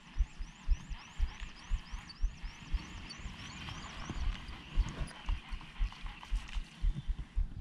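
Low, muffled thumps on the microphone about twice a second. Over the first half they are joined by a quick run of high chirping calls, about three a second, that stop about halfway through.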